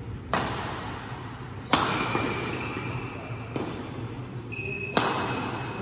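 Badminton rackets striking a shuttlecock in a doubles rally: four sharp hits roughly a second and a half apart, the third one softer, each leaving a short echo.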